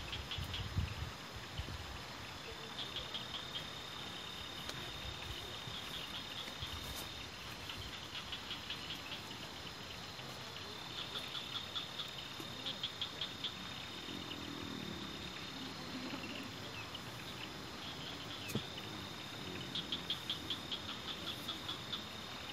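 Night insects chirping: a high, steady trill with bursts of rapid chirps recurring every few seconds, over a faint steady hiss.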